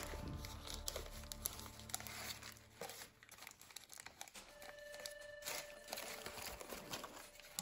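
Paper crinkling and rustling as a sheet of origami paper is folded and collapsed by hand: a string of small, irregular crackles.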